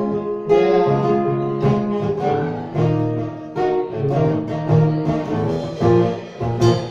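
Live band playing an instrumental passage with guitar to the fore and no singing.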